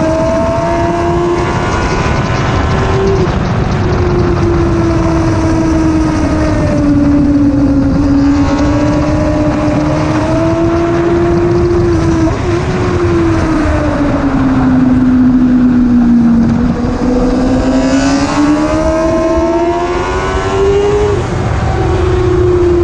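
A 1000cc sportbike engine heard from onboard at high revs on a race track, its pitch rising and falling with the throttle through a series of corners. Near the end the pitch breaks and drops briefly, as at a gear change, then climbs again. Heavy wind noise rushes over the microphone throughout.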